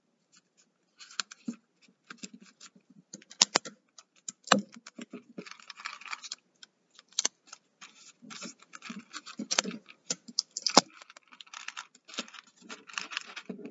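Hands handling a plastic water bottle partly filled with dried chickpeas while taping a paper wrapper around it: irregular clicks, crinkles and scratches of plastic, paper and tape, with a short rustle of chickpeas shifting as the bottle is tilted about halfway through.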